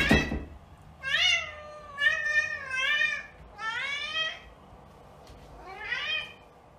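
A cat meowing repeatedly: about five separate meows, each bending up and down in pitch, two of them close together in the middle. A short sharp knock sounds at the very start.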